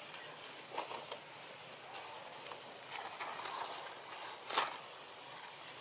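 Dry fallen leaves rustling and crackling in short, irregular bursts as macaques shift and pick through the leaf litter, the loudest crackle about three-quarters of the way through, over a faint steady outdoor hiss.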